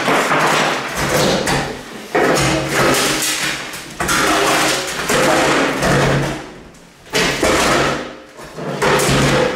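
Small metal wall safe being tipped and dragged over a hardwood floor strewn with plaster debris. It scrapes and grinds in repeated stretches of a second or two.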